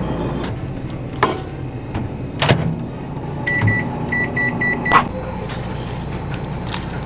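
Microwave oven keypad being pressed: about six short high beeps, one per button press, a second and a half apart at most, ending in a click. Two clunks come before the beeps, over a steady low hum.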